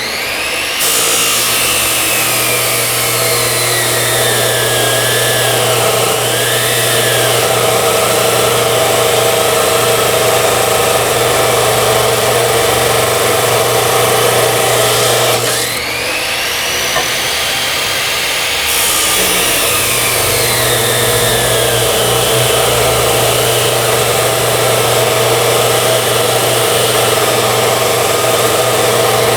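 Electric circular saw cutting metal: the motor runs with a steady hum under a harsh, hissing cut, and its whine sags and recovers in pitch as the blade bites. Shortly past halfway the highest part of the cutting noise thins, and about three seconds later it comes back in full.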